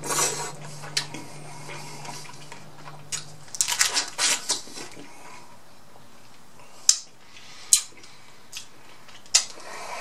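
Mukbang eating sounds: noodles slurped at the start, then Atlantic red crab leg shells crackled and snapped apart by hand, with a cluster of crunches about four seconds in and three sharp cracks in the second half.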